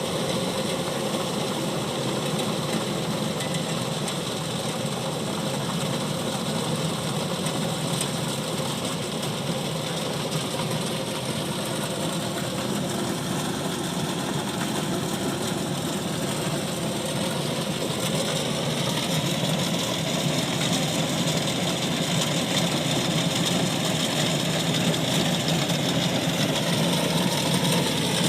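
Kubota DC-105X rice combine harvester running steadily, its engine and threshing machinery making a continuous drone that grows a little louder near the end.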